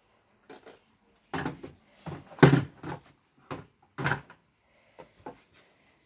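Hard plastic knocking and clattering as a toy dump truck is handled and set down on a toy kitchen: a run of about ten irregular knocks, the loudest about two and a half seconds in.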